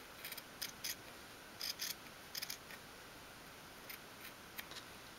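Scissors snipping through folded checked fabric: a handful of short, faint, crisp cuts, spaced unevenly.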